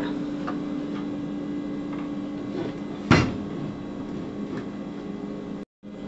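Hotpoint dishwasher door pushed shut with a single thud about three seconds in, over a steady low hum.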